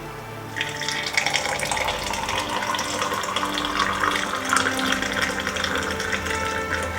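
Water running from a kitchen tap, starting about half a second in and flowing steadily, with background music underneath.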